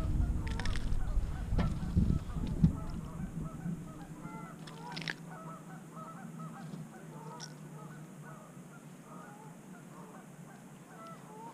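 A flock of birds calling, many short faint calls a few times a second. Low thumps and handling noise in the first few seconds.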